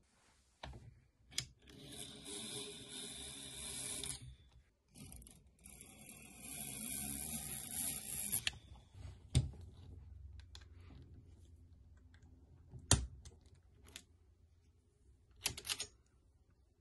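M1 Garand rifle being taken apart by hand: scattered sharp metal clicks and knocks, and two stretches of sliding noise a few seconds long as parts are drawn out and moved against each other.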